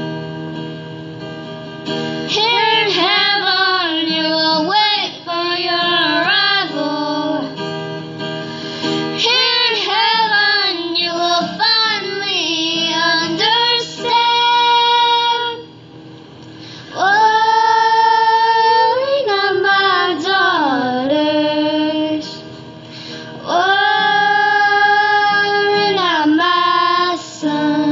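A female voice singing a slow ballad over acoustic guitar. The phrases run quickly at first, then give way to long held notes in the second half.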